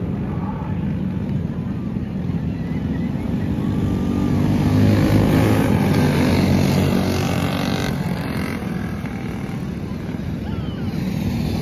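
Small engines of several mini wedge race cars running as they drive past on a dirt track. The sound grows loudest around five to seven seconds in, then fades with a falling pitch as the cars go by.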